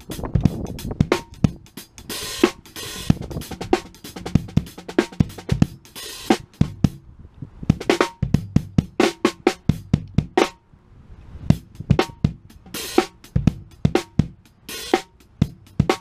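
Premier drum kit with Sabian cymbals played as a solo groove: snare, bass drum, tom and hi-hat strokes with several cymbal crashes. It breaks into two short pauses, about seven seconds in and again around eleven seconds.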